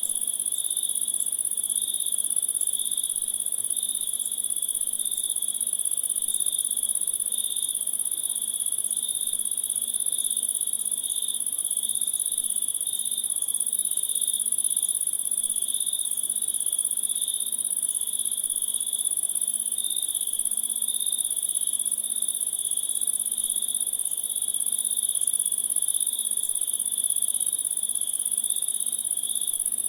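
Insect chorus: a continuous very high shrill with a lower, gently pulsing trill beneath it, steady throughout.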